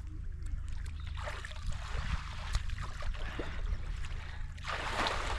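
River water splashing and sloshing as people move through it, with a louder splash near the end.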